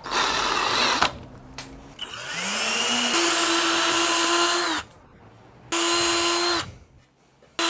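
Power drill boring a pilot hole into wood, run in three goes: a short burst, then a longer run about two seconds in that winds up in pitch and holds steady, then another short burst.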